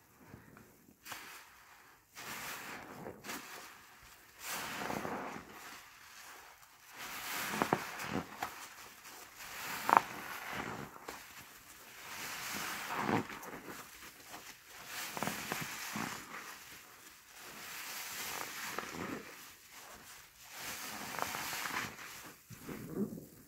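A yellow HDX sponge being squeezed and kneaded by hands in thin plastic gloves in thick soap suds: wet squishing and crackling foam that comes in irregular swells. One sharp, louder squelch comes about ten seconds in.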